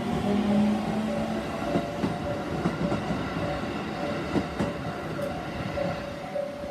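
A JR Minobu Line electric train passing over a level crossing, its wheels clattering over the rail joints in a steady run of clicks. The crossing's warning bell rings on behind it.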